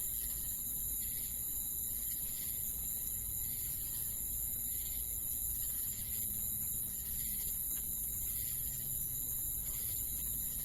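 Crickets chirring in a steady, continuous high-pitched chorus, over a faint low background rumble.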